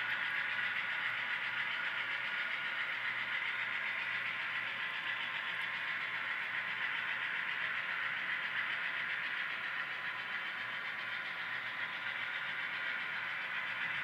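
Model freight train running: a long string of covered hopper cars rolling steadily along the track, a continuous even whirring with no break.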